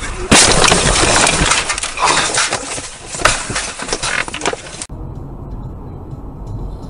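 Car crash on a snowy road picked up by a dashcam microphone: a loud impact about a third of a second in, followed by more knocks and crashing for about four seconds. The crash cuts off suddenly and a steady low road hum follows.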